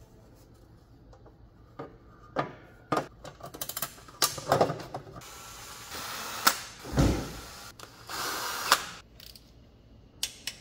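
Cordless drill-driver running in two short bursts, about five and eight seconds in, driving in the bolts of an automatic transmission oil pan. Clicks and clinks of tools and bolts come in between.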